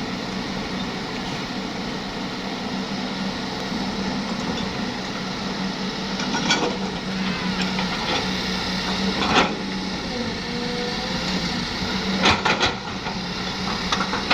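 Excavator's diesel engine running steadily, with sharp knocks about six and nine seconds in and a quick cluster of knocks near the end.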